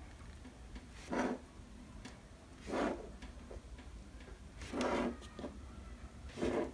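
A person breathing heavily and close by, about one breath every one and a half to two seconds, with a few faint small clicks between the breaths.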